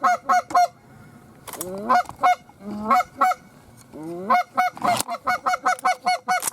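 Geese honking: quick runs of short, clipped honks, several a second, with a few longer honks that break from a low note up to a high one.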